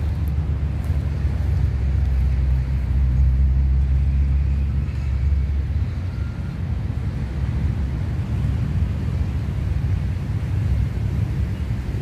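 Low, steady rumble of road traffic, swelling for a few seconds in the first half and then easing.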